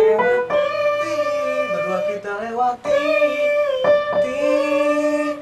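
A woman's voice sings long held notes of a vocal exercise line over upright piano accompaniment. The vocal coach judges the held note still not good enough.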